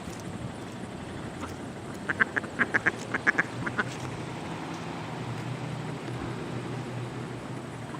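Mallard ducks quacking: a quick run of about a dozen short quacks, a couple of seconds in.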